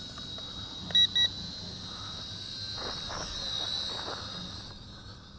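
Two quick beeps from the toy drone's controller about a second in, the signal that headless mode has been switched on. Under them the high whine of the Bolon K901 quadcopter's small motors and propellers, which wavers in pitch and fades near the end.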